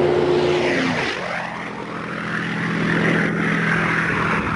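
A P-51 Mustang's propeller-driven V-12 engine makes a low, close flyby. Its steady engine note drops sharply in pitch about a second in as it passes overhead, then carries on as a lower drone while it goes away.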